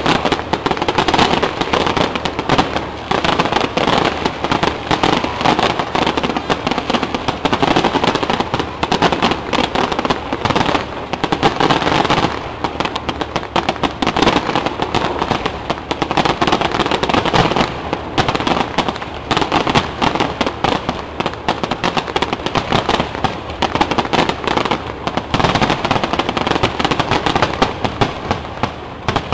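Aerial fireworks display: a dense barrage of shells bursting, many bangs and pops a second almost without pause, thinning briefly near the middle.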